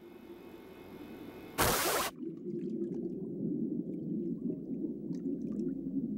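Underwater ambience sound effect: a short loud rush of noise about one and a half seconds in, then a steady muffled low underwater rumble with faint bubble ticks.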